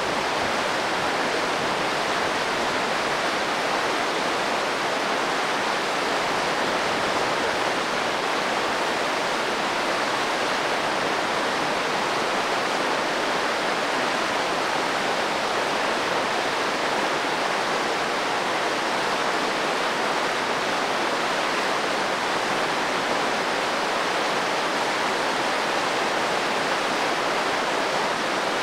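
Whitewater mountain creek running high over boulders: a steady, unbroken rush of water.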